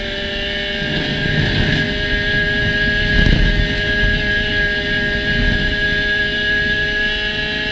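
Spec Racer Ford Gen3 race car engine running at a steady, high pitch under load, with a low rumble that swells and fades a few times, loudest about three seconds in.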